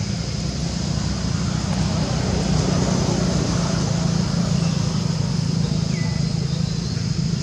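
A steady low mechanical hum with a constant high-pitched whine above it, and a faint short chirp near the end.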